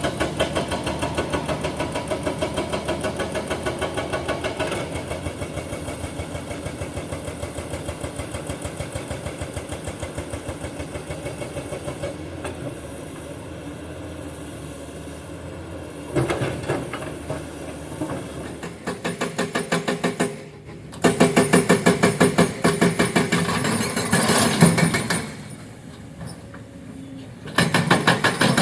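Excavator's hydraulic breaker hammering rock in rapid repeated blows over the running diesel engine. The hammering comes in bouts: it eases off about halfway through, then returns loudest in two bursts near the end with short pauses between them.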